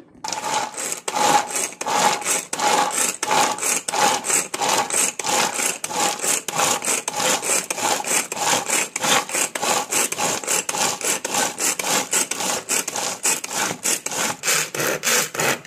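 Small food chopper grinding garlic and green chillies with salt, lemon and olive oil into a paste: a rasping whirr that repeats in quick, even strokes, about three or four a second.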